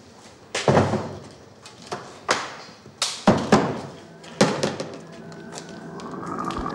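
Hard plastic toolbox knocked down and handled on a metal workbench: about eight sharp, irregular knocks and clatters. A steady hum comes up near the end.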